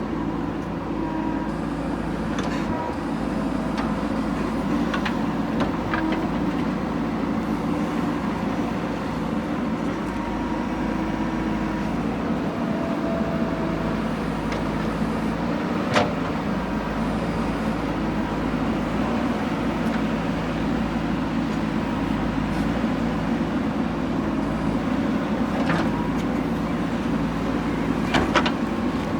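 Diesel engine of a JCB 3DX backhoe loader running steadily under working load while it digs, with a few sharp knocks, the loudest about sixteen seconds in.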